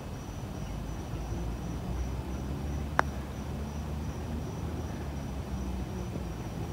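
A putter striking a golf ball once, a single sharp click about three seconds in. Under it a steady low outdoor rumble and a thin, pulsing high insect trill.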